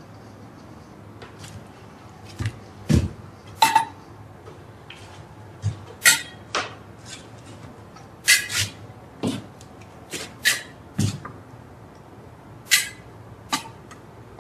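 Irregular light clicks, taps and knocks of small objects being picked up and set down on a wooden table, with a couple of duller thuds among them.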